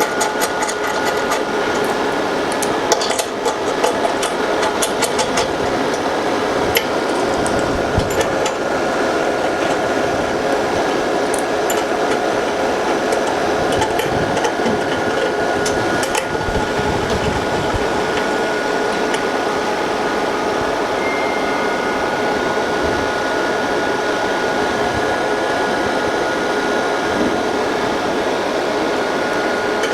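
Steady whir of the laser separator machine's cooling fan with a constant tone running through it, and scattered clicks and small metal taps, mostly in the first half, as the mold's clamp screws are fitted and fastened.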